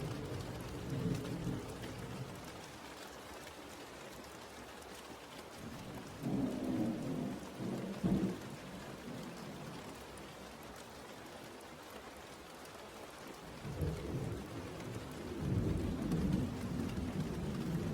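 Steady rain with rolling thunder: one rumble swells about six seconds in, and another builds from about fourteen seconds in.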